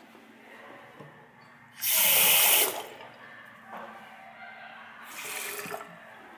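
Bathroom sink faucet run briefly, with water splashing loudly into the basin for about a second, then running again more quietly near the end.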